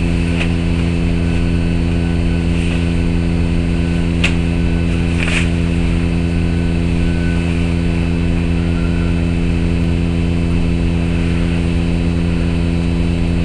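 Steady low electrical hum with a buzzing stack of overtones, unchanging in level. Two faint short clicks come about four and five seconds in.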